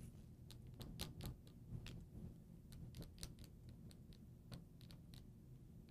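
Marker tip tapping and clicking faintly on a glass lightboard while a formula is written: a dozen or so short, irregular clicks.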